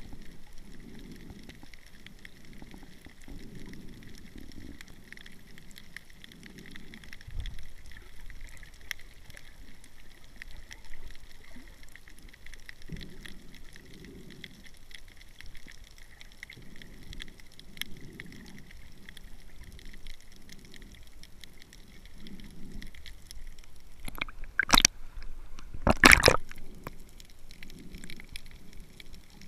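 Muffled underwater water noise picked up by a submerged camera: low gurgling and sloshing that swells and fades about every second. Near the end come two loud sudden noises about a second and a half apart.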